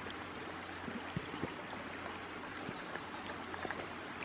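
Shallow stony river running over rocks, a steady rush of water, with a few faint high chirps about half a second in.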